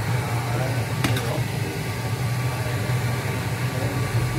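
Steady low hum of a fan motor, with the spatula clicking once against the pan about a second in as the curry is stirred.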